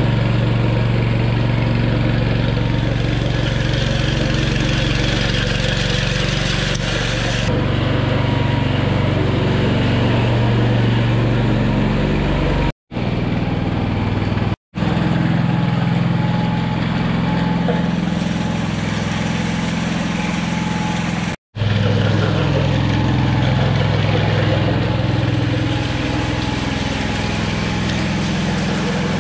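Small gasoline engine of a walk-behind power trowel running steadily while troweling fresh concrete, with three brief gaps where the sound cuts out.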